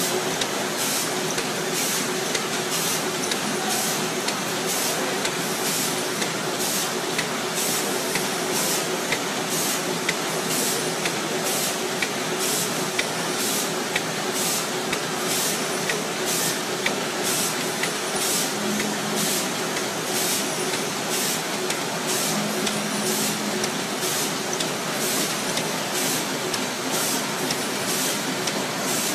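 Infeed conveyor of a PFM Hurricane flow wrapper running: a steady machine hum with a short hiss-like burst repeating evenly, about three every two seconds.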